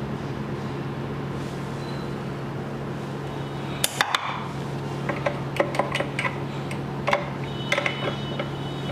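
Steady low electrical hum from the repair bench. From about four seconds in, a series of light clicks and clinks as small tools are handled and set down.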